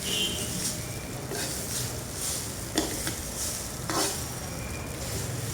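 Fried rice sizzling in a hot pan while a spatula stirs and scrapes it in repeated strokes, with two sharp knocks of the utensil against the pan about three and four seconds in.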